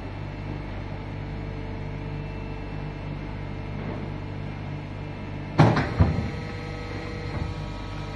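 Leather-and-foam lamination press running with a steady hum, then two loud knocks in quick succession a little past halfway and a fainter knock shortly after, as its upper platen comes down onto the workpiece.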